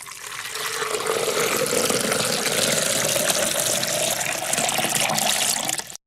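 A drink being poured into a glass in a steady stream, the note of the filling glass rising as it fills, then stopping abruptly near the end.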